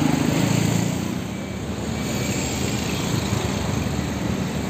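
Large bus diesel engine running close by, its low hum strongest in the first second, then fading into a steadier mix of engine and traffic noise after about a second and a half.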